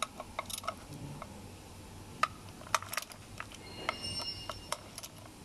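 Scattered sharp metal clicks and clinks of a ratcheting wrench tightening the bolts on an aluminium automatic-transmission valve body, with a short metallic ring about four seconds in.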